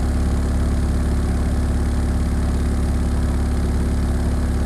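Car subwoofer with a homemade voice coil driven hard with a steady, loud low bass tone, with no beat or change. This is a sine-wave heat test that is pushing the coil's temperature up.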